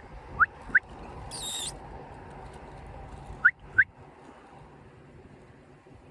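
Two pairs of quick, high rising squeaks, kiss-kiss sounds made with the lips to call a wolf over. A brief hiss comes between the pairs, and a low steady rumble runs underneath.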